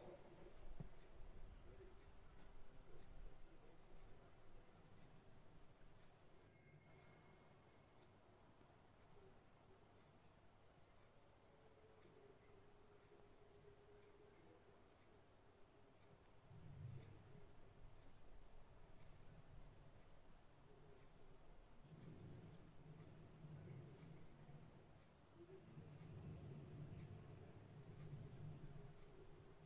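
Faint insect chirping, crickets by their even rhythm: a steady train of short high chirps over a constant high whine. Soft low rustling comes in a few times in the second half.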